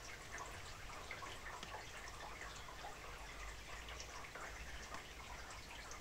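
Light rain dripping and pattering: many small irregular drops, over a faint low rumble.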